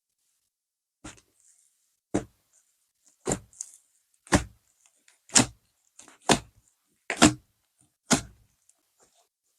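Bead-topped whipped-cream slime being pressed and squished by hand, a short squelch about once a second, eight times.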